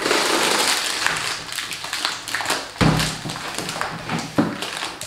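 Clear plastic bag of small helmet parts rustling and crinkling as it is pulled out of a motocross helmet, with two dull knocks, the first about three seconds in and the second about a second and a half later.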